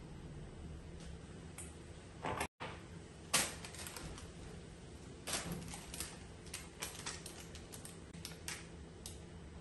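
Spatula knocking and scraping against a mixing bowl full of brownie batter: a sharp knock about three seconds in, then a run of irregular clicks and taps.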